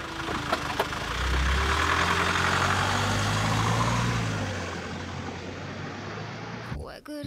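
Minivan engine pulling away: the engine note climbs slightly as it accelerates, then fades as the van drives off. A few small clicks come just before it.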